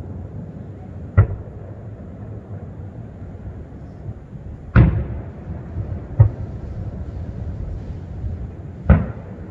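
Aerial firework shells bursting: four booms, about a second in, near five seconds, at six seconds and near the end, each trailing off in an echo.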